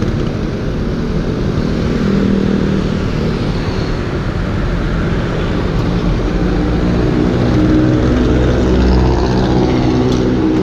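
Motorcycle engines running close by at low speed, the engine note steady at first and rising and strengthening in the second half as a bike moves off.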